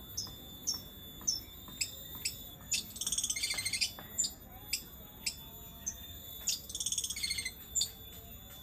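Caged songbirds calling: a sharp high chip repeated about every half second, broken twice by a rapid chattering trill lasting about a second.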